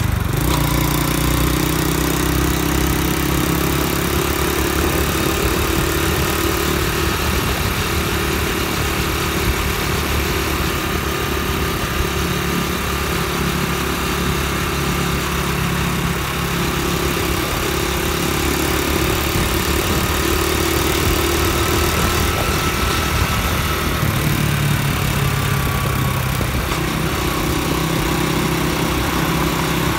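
Honda Dream motorbike's single-cylinder four-stroke engine running steadily while riding at cruising speed, heard from the saddle over a steady rush of wind and road noise. The engine note shifts slightly a little after twenty seconds in.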